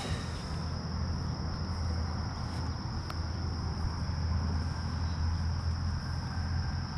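Insects trilling steadily at one high pitch, over a constant low rumble.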